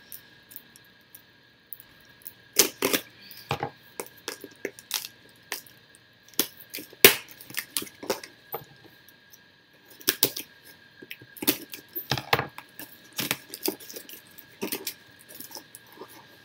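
Cardboard box and packaging being handled: irregular rustles, taps and knocks as items are moved about and lifted out of the box.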